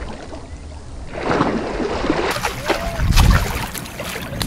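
Water splashing and sloshing as a hooked rohu is scooped into a landing net and lifted out, the fish thrashing in the mesh. The splashing is heaviest about three seconds in.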